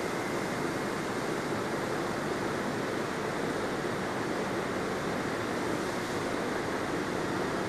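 Steady rushing background noise, even throughout with no distinct events.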